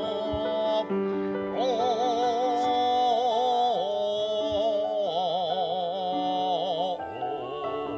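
Background music: a slow melody held with strong vibrato over sustained accompanying chords.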